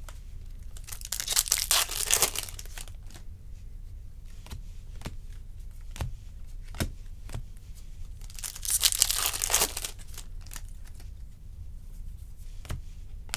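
Baseball trading cards being handled and flipped through by hand: scattered light card clicks, with two longer crinkling, rustling bursts, one about a second in and one about nine seconds in.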